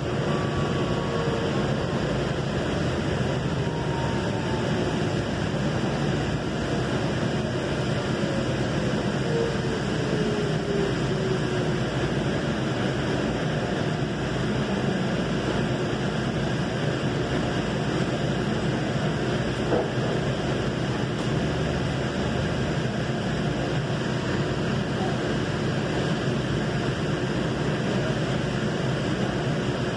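Steady rumble and hiss of a Valley Metro light rail car heard from inside the car, with a faint motor whine that falls in pitch over roughly the first ten seconds as the train slows.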